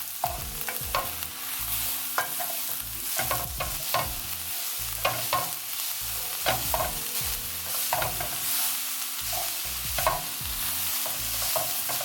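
Sliced red onion and red bell pepper sizzling in a hot oiled pan while being stirred, with a steady hiss and a utensil clacking and scraping against the pan every half second or so.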